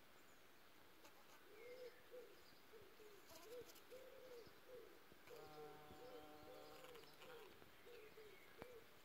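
Faint bird calls: a run of soft, low hooting notes, about two a second, starting a second and a half in. A steady low hum joins for a couple of seconds in the middle.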